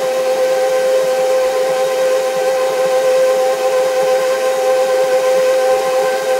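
KitchenAid Professional HD stand mixer running at a steady speed, its motor and gearbox giving an even whine as the flat beater works the flour into cookie dough.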